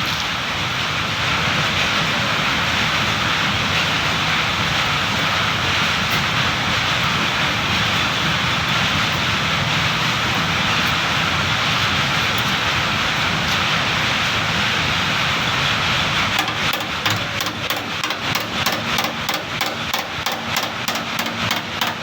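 Gas welding torch flame hissing steadily; in the last few seconds a rapid run of sharp taps or clicks, about four or five a second, joins it.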